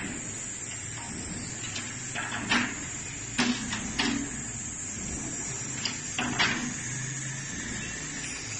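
Frameless folding glass door panels being slid and folded by hand, with several sharp clicks and knocks from the panels and their hardware over a steady hiss.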